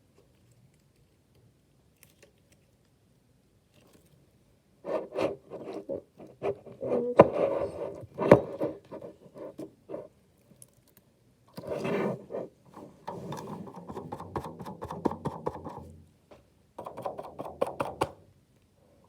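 Slime being squished and worked by hand, making rapid wet crackling and clicking sounds. It comes in three stretches, starting about five seconds in.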